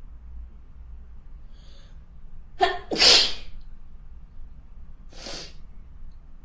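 A person sneezing in a fit: a faint breath in, then one loud, explosive sneeze about three seconds in, followed by a second, quieter sneeze about two seconds later.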